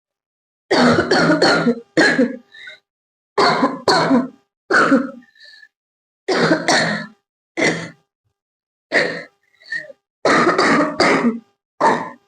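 A girl coughing over and over: more than a dozen sharp, loud coughs in short runs of one to three, with brief silent pauses between the runs. A few runs end with a faint catch of breath.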